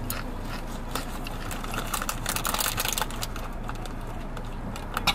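Quiet mouth clicks and lip smacks of a person tasting a very hot chilli sauce, with a denser run of clicks and hiss about two seconds in, over a steady low hum inside a car.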